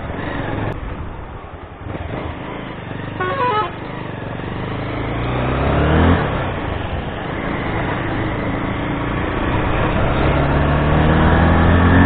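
Motorcycle engine under way, heard from the rider's seat, pulling higher in pitch as it accelerates, dropping with a gear change about six seconds in, then climbing again. A horn sounds once, briefly, a little over three seconds in.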